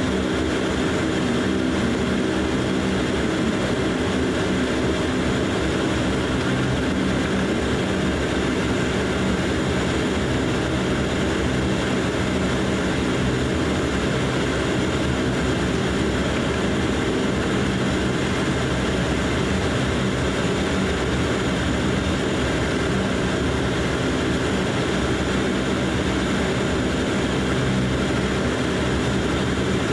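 DHC8-Q400 turboprop's Pratt & Whitney PW150A engines and propellers at taxi power, heard inside the cabin beside the engine. It is a steady drone of several low tones with a faint high whine above it.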